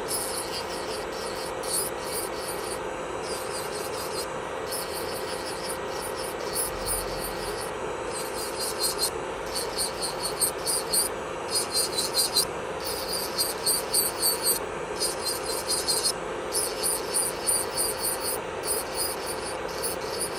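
Electric nail drill (e-file) running with a steady whine while its bit grinds against the nail in repeated short rasping passes, which grow louder about halfway through.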